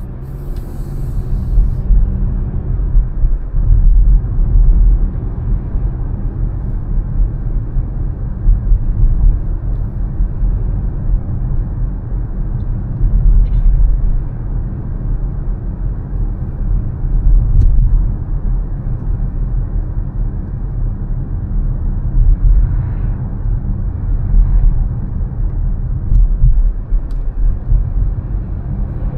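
Low, continuous rumble of a car being driven: engine and tyre noise, swelling and easing every few seconds.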